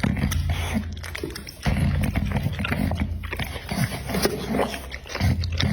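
American Pocket Bully dog eating meat: wet chewing and crunching bites over a low steady rumble.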